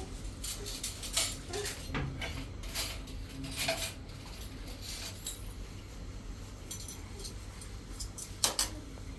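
Irregular light clinks and knocks of small hard objects being handled, with the loudest knock about eight and a half seconds in.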